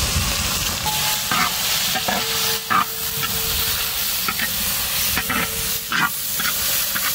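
Grated white pumpkin (ash gourd) sizzling in hot ghee in a wide metal pan, with a steady frying hiss. A perforated steel ladle scrapes and stirs it several times.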